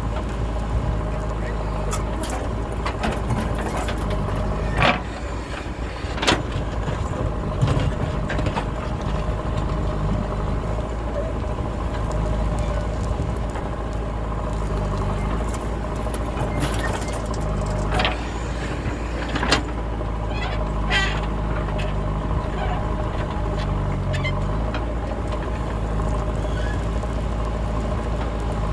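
JCB backhoe loader's diesel engine running steadily while loading, with several sharp knocks along the way.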